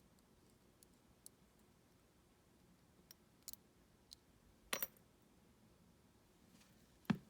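Scattered light clicks and taps of small metal lock parts being handled while a U-Shin Showa NX pin lock is taken apart, with a stronger click about five seconds in and a sharp tap near the end.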